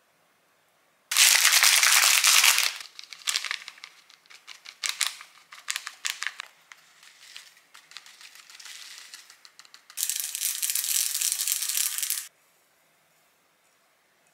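Plastic food packets crinkling and rustling as dry toppings are shaken onto a bowl of noodles. There are two loud rustling stretches, one of about a second and a half starting about a second in and one of about two seconds near the end, with lighter crinkles between.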